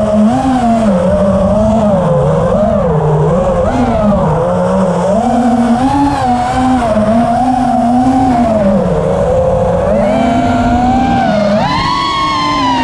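Electric motor and propeller of a radio-controlled model aircraft whining steadily, its pitch wandering up and down with the throttle and climbing near the end. Wind noise rushes over the airborne camera's microphone underneath.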